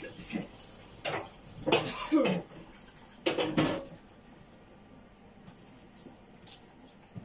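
Dishes clattering and clinking in a kitchen sink during washing-up: a few loud clatters in the first four seconds, then only light, scattered clicks.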